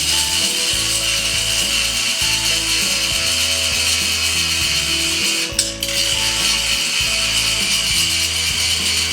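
Angle grinder grinding down fresh welds on a steel trailer frame, a continuous rough grinding that breaks off briefly about halfway through and picks up again. Background music plays underneath.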